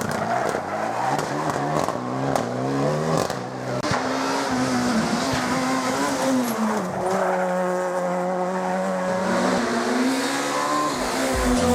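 Rally car engine at high revs, its pitch climbing and dropping again and again through gear changes, then holding steady for a few seconds before rising once more near the end.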